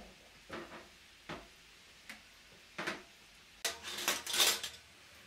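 Dishes and glass bowls set down one by one on a large metal tray table: four separate knocks about a second apart. Then forks are laid on the metal tray with a clatter, the loudest sound, about four seconds in.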